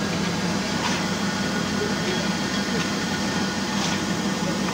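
Steady low drone from a standing locomotive, with a few faint clinks of coal being worked on the footplate.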